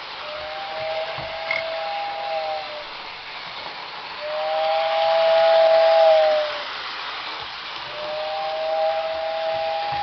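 O gauge K-Line New York Central whistle tender sounding its two-note whistle in three long blasts, the middle one the loudest, each sagging slightly in pitch as it ends. A steady hiss runs underneath.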